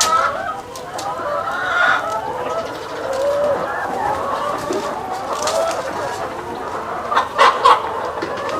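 A flock of chickens clucking, several birds calling over one another without a break. Two sharp knocks come near the end.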